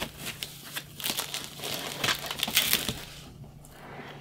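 Plastic packaging crinkling and rustling as it is handled, in irregular crackles that die down about three seconds in.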